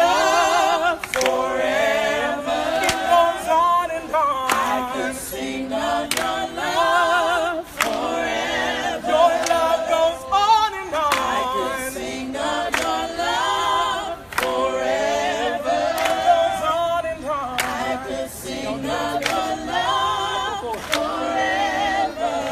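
A group of people singing a worship song together, unaccompanied, with hands clapping along.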